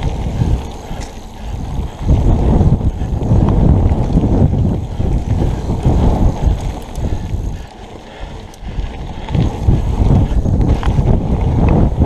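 Wind buffeting an action camera's microphone and the rumble of mountain bike tyres on a dirt singletrack during a fast descent, with light rattles and clicks from the bike over bumps. The rush eases briefly twice as the bike slows.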